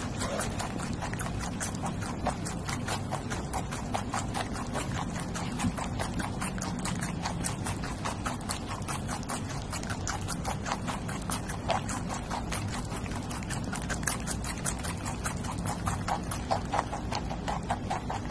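Two guinea pigs chewing sprigs of a leafy herb, a quick, steady run of small crunching clicks as they nibble the stems up into their mouths.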